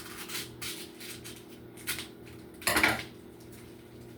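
Kitchen handling noises: a few short rustles and knocks as food and utensils are moved about, with a louder scraping clatter about two and three-quarter seconds in, over a steady low appliance hum.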